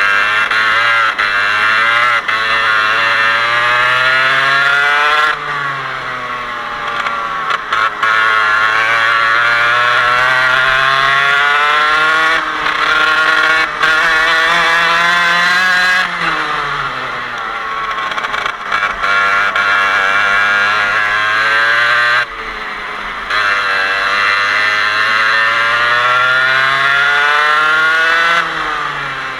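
Parilla 125cc two-stroke kart engine under racing load. Its pitch climbs steadily for several seconds along each straight, then falls sharply as the driver lifts off for a corner, four times over.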